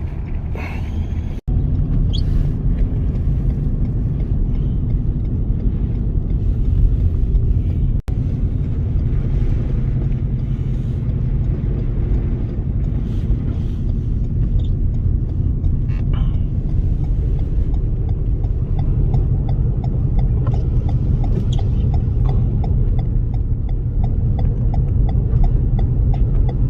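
Steady low rumble of vehicle and road noise, with faint regular ticking in the second half.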